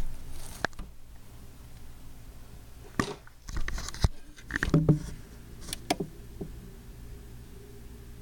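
Handling noise: a scatter of sharp clicks and short rubbing clatters, bunched in the middle, as a handheld camera is moved around close to a terrarium, over a low steady hum.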